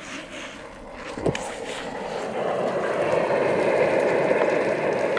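Onions and carrots frying in a pan, a sizzle that swells over the first few seconds and then holds steady, with a single knock about a second in.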